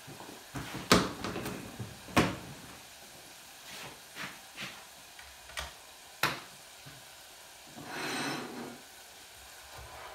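Kitchen handling sounds: a few sharp knocks and clatters of utensils and cookware over faint frying. Near the end comes a short sizzling burst as food is stirred in the small deep fryer.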